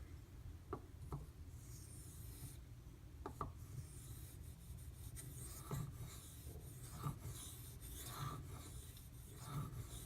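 Steel knife blade stroked back and forth on a wet Imanishi water stone, with faint rasping strokes and a few light clicks. The blade is riding the shoulder of the bevel to clear stray scratches.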